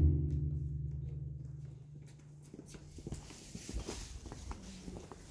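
The deep boom of a large barrel drum, just struck with a stick, rings on and fades away over about two seconds. After that come faint scattered steps and small knocks on stone paving.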